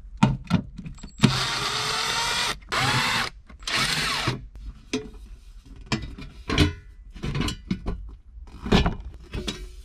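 Cordless driver with a T30 Torx bit running in three bursts of about a second each, backing out the bolts of the van's battery cover plate. It is followed by scattered clunks and knocks as the plate is worked loose and lifted, the loudest near the end.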